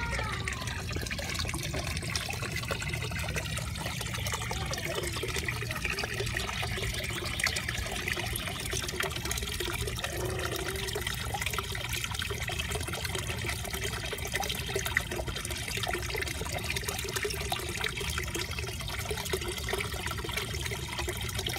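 Water trickling and splashing steadily into a koi pond, the constant flow of the pond's filtration return.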